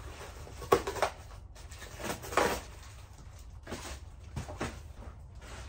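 Cardboard boxes being handled and set on metal shelving: a sharp knock just under a second in, a louder knock and rustle about two and a half seconds in, then a few lighter knocks.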